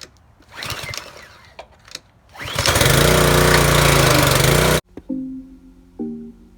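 Pressure washer running, its motor hum under the hiss of the spray, loud and steady for about two seconds before cutting off sharply. A shorter rasping burst comes first, about half a second in.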